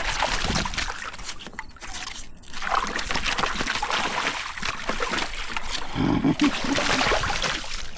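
Seawater sloshing and trickling over rocks at the shoreline, with a louder surge about six seconds in.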